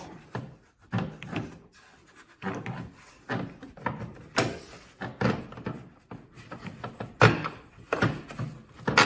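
Plastic rear hatch trim piece of a Lexus RX being worked off the hatch by hand: irregular knocks, clunks and rubbing scrapes of plastic against the hatch as it comes free of its clips, the loudest knock about seven seconds in.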